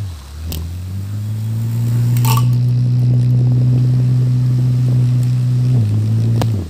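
Small DC motor of a homemade egg beater whirring as its bottle-cap whisk spins in egg in a steel tumbler. Its hum dips in pitch briefly near the start, runs steady, then slows and cuts off near the end. The motor is underpowered on about 4 volts, and the speaker says water getting into it makes it stick at times. A couple of light clinks come from the whisk against the steel.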